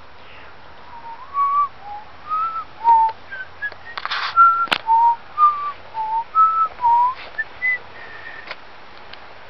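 A person whistling a tune: a string of short, clear notes stepping up and down in pitch, with a sharp knock about halfway through.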